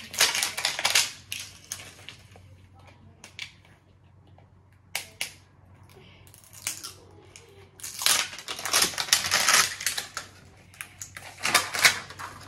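Toy packaging being torn open and crinkled by hand in several bursts of rustling, the longest and loudest a couple of seconds long in the second half.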